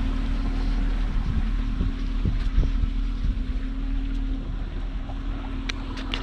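Pontoon boat's Honda four-stroke outboard motor running steadily under way, with a low rumble and a steady hum, mixed with wind on the microphone and water rushing past the hull. A few sharp clicks near the end.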